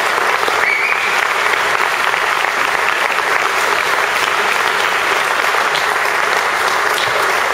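Audience in an auditorium applauding steadily, a dense patter of many hands clapping.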